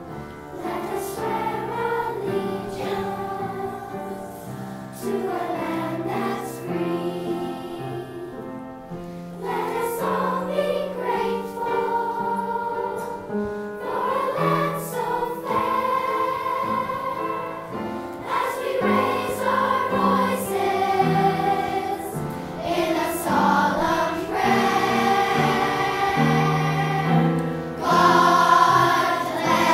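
A children's choir of schoolgirls singing a song in unison, getting louder near the end.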